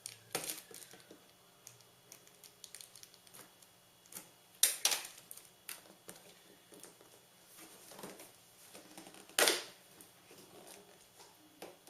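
A cardboard product box being opened by hand: scattered clicks and light rustling of cardboard, with two louder scraping sounds about four and a half and nine and a half seconds in.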